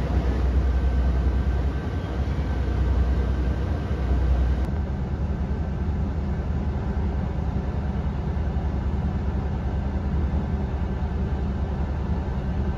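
Steady low rumble and hum heard inside an electric city bus, with no engine note. The sound changes abruptly about four and a half seconds in to a similar, slightly duller hum.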